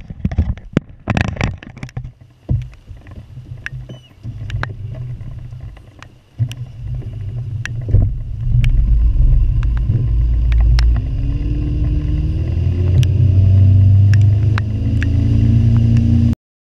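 Outboard motor driving a bass boat at speed, getting much louder about eight seconds in, its pitch slowly climbing through the last several seconds, with heavy wind rush on the microphone and scattered sharp clicks.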